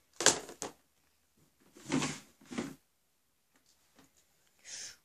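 Small plastic loom-band boxes and mini looms being handled on a table: a few short plastic knocks and clatters, in pairs about two seconds apart, with a brief scrape near the end.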